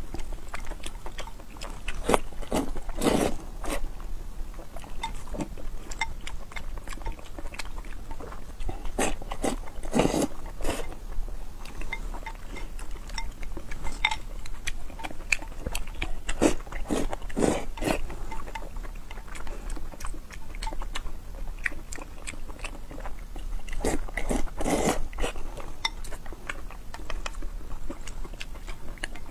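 Close-miked eating: a person slurping noodles and chewing, with wooden chopsticks clicking against a glass bowl. Several longer slurps come every few seconds among the steady chewing and clicks.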